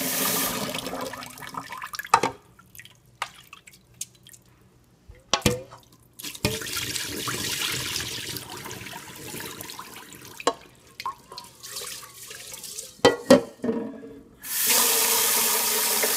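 Kitchen tap running into a rice cooker's inner pot of rice being washed, then the cloudy rinse water poured off into the sink, with a few sharp knocks in between; the tap runs full into the pot again near the end.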